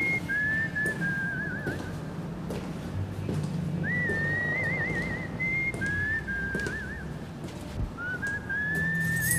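Background music with a whistled melody: held notes that end in quick warbles, repeated phrase after phrase over a low, steady bass line.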